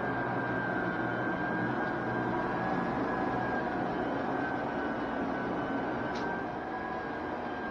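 High-speed electric floor burnisher running steadily, its pad spinning on vinyl composition tile floor. A constant motor hum with a steady high tone over it.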